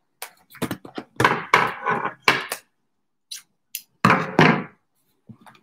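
Scissors cutting the packing tape on a cardboard mailer box, a quick run of scraping snips and knocks. A couple of clicks follow, then a louder thunk and rustle of cardboard as the box is handled about four seconds in.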